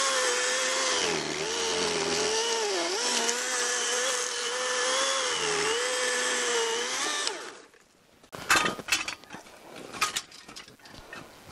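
Greenworks battery chainsaw cutting through a log: a high motor whine whose pitch sags several times as the chain bites. It winds down and stops about seven seconds in, and the chain is getting dull. Light knocks and crunches follow.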